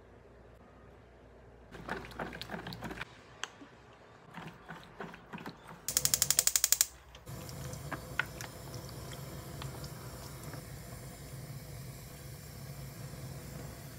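A wooden spoon knocks and scrapes in a stainless steel bowl as sauce is stirred. About six seconds in, a gas stove igniter clicks rapidly, about a dozen loud clicks in a second, and the burner catches and runs with a steady low hum under the pan of cod.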